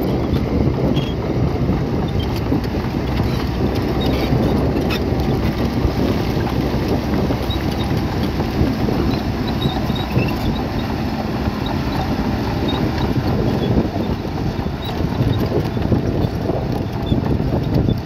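Heavy diesel earthmoving machinery running steadily under load, with scattered small clinks and ticks over it.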